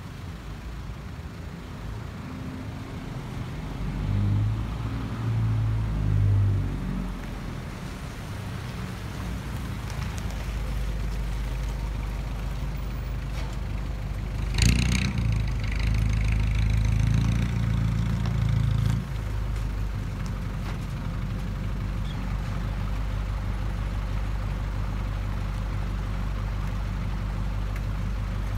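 Isuzu NKR58E tipper truck's 4BE1 four-cylinder diesel engine driving in under load, louder a few seconds in, with a brief sharp hiss about halfway. The engine pulls harder for a few seconds, then drops abruptly to a steady idle, running on with the truck parked.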